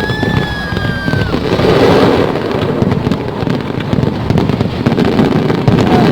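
Aerial fireworks bursting in a dense run of bangs and crackles, with a whistling shell's tone falling slightly through the first second or so.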